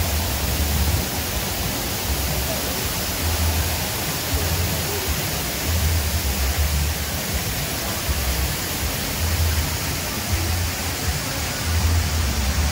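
Steady rushing hiss of fountain water jets, with low bass pulses coming and going underneath.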